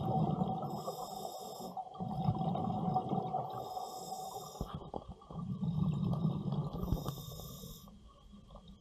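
Scuba diver breathing through a regulator underwater: a high hiss on each inhalation alternating with the low rumble of exhaled bubbles, three breaths in turn.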